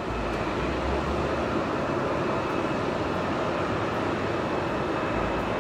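Airbus A300 freighter's twin turbofan engines on final approach: a steady jet rumble and rush, with a faint high whine above it.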